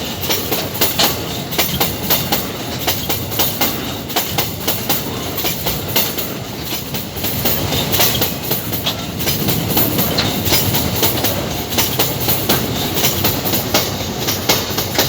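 Empty iron-ore wagons rolling past, their wheels clattering over the rail joints in a continual run of clacks over a steady rumble.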